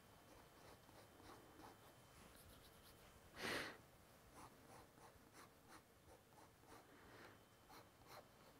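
Fountain pen nib scratching faintly across sketchbook paper in many short strokes, with a single louder breath near the middle.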